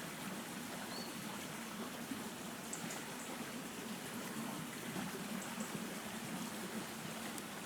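River water running steadily, a high-water flow after rain.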